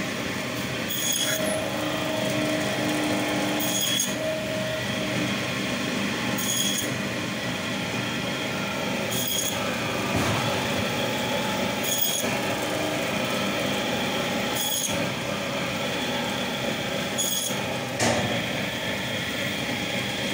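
Electric band saw running steadily as it slices through a whole hilsa fish, with a short sharp tick repeating about every two and a half to three seconds.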